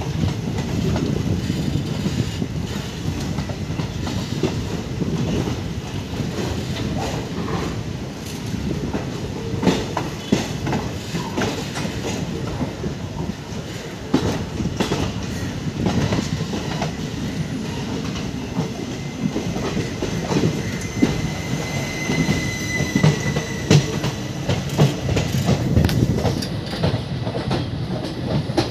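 Indian Railways passenger coaches rolling past at close range: a steady rumble of wheels on rail, with irregular clicks and knocks as the wheels cross rail joints. A thin, brief wheel squeal comes in about three-quarters of the way through.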